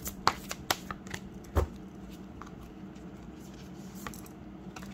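Deck of tarot/oracle cards being shuffled by hand: a quick run of sharp card snaps and taps in the first two seconds, the loudest about one and a half seconds in, then only a few faint ticks.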